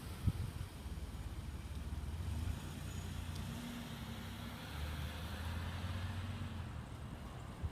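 Road traffic: a motor vehicle's low engine hum, with tyre noise swelling about halfway through as it passes.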